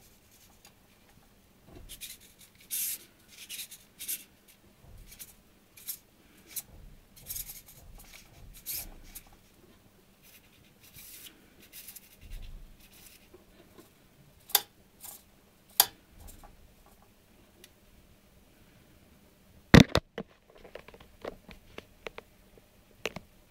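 Hobby servo motors in an animatronic robot head moving its eyes, jaw and head: short, irregular scratchy whirs, with a few sharp clicks in the second half and the loudest click about 20 seconds in.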